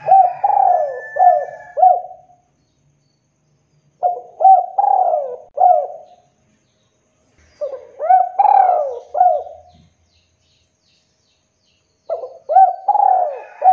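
Spotted dove cooing: four phrases of several rolling coo notes each, about one phrase every four seconds, the last still going at the end.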